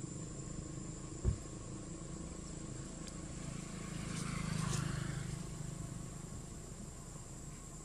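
Outdoor ambience with a steady high insect drone. A single dull low thump comes about a second in, and a brief soft rustling swell with a few clicks comes around the middle.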